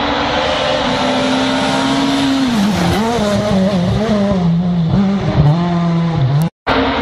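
Rally car engine running hard at high revs with one steady note, then from about two and a half seconds in its pitch dips and climbs again and again through throttle lifts and gear changes as the car passes. The sound cuts out briefly near the end.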